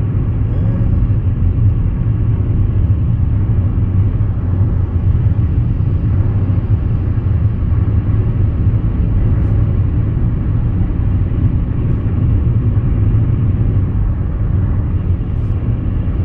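Steady, deep road rumble of a car at freeway speed, heard from inside the cabin: tyre and engine noise with no change in pace.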